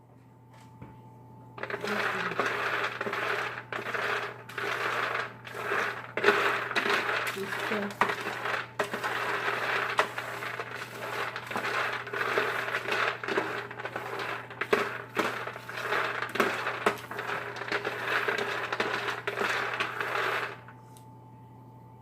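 Peanuts rattling and scraping against a baking pan as they are stirred partway through oven roasting, a dense clatter of many small hard knocks. It starts about two seconds in and stops shortly before the end.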